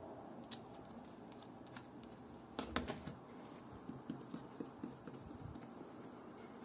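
Faint handling clicks and knocks on a metal watch-crystal holder, loudest about halfway through. A cloth-covered fingertip then rubs polishing paste over an acrylic watch crystal, with a run of small soft ticks.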